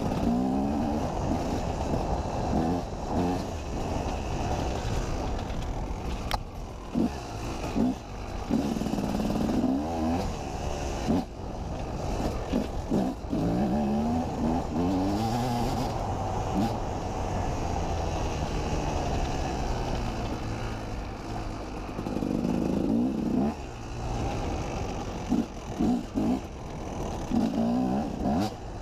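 KTM 250 EXC two-stroke enduro motorcycle engine revving up and down again and again as the bike is ridden over a dirt track, with clattering knocks from the bumps.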